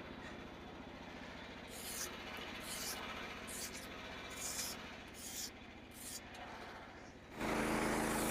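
Portable band sawmill running, its small gas engine humming steadily while the blade cuts through red oak, with short hissing bursts every second or so. About seven seconds in, the engine and saw grow suddenly louder.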